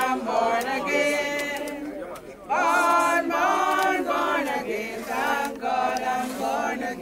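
A crowd of mourners singing together unaccompanied, with a short break between lines about two and a half seconds in.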